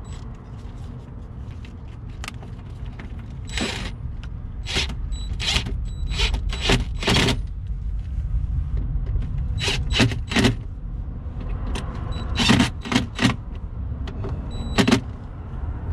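DeWalt cordless driver running in short bursts, about a dozen in clusters, as it drives and snugs down the screws fastening a rubber mud flap into the wheel well.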